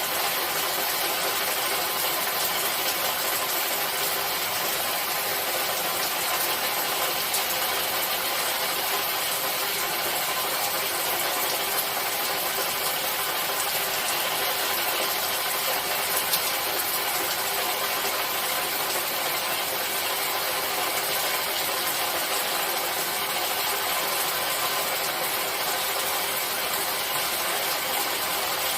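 Steady rainfall: an even, unbroken hiss of falling rain.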